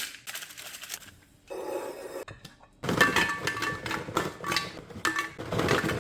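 Hard containers clinking and clattering against each other as items are handled and set down during restocking, getting busier about halfway through, with short ringing notes.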